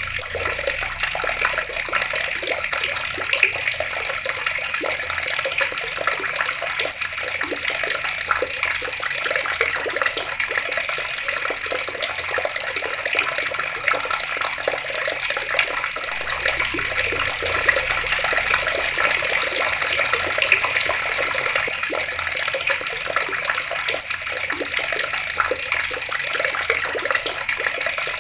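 Water pouring steadily from an outdoor tap, a continuous splashing rush with no pauses.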